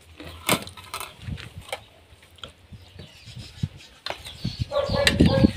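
A metal spoon clinking and knocking against ceramic plates in a run of sharp clicks as food is served. Near the end a hen clucks in short, broken calls.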